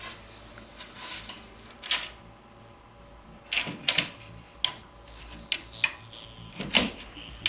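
Irregular sharp knocks and clicks of the cabinet's wooden side panels and metal corner brackets as they are handled and fitted onto the drawer base frame, with the loudest knock near the end.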